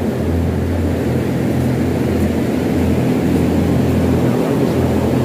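Greenhouse ventilation fans running, a loud steady low hum with an even rushing noise over it.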